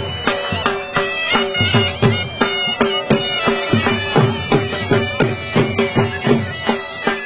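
Dhol drum beating a fast, driving dance rhythm, about three strikes a second, under a double-reed pipe playing a melody over a steady drone.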